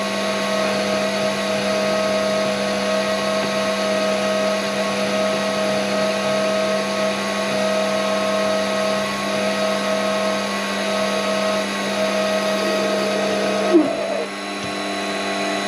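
Warco mini lathe running under load, turning aluminium bar: a steady motor and gear whine with the hiss of the tool cutting. A brief knock comes near the end, after which the machine runs a little quieter.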